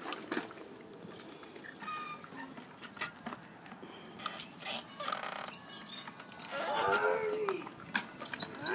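Hard plastic wheels of children's ride-on drift trikes rolling and scraping over concrete, with scattered clicks and rattles. A couple of short pitched squeals come near the end and are the loudest part.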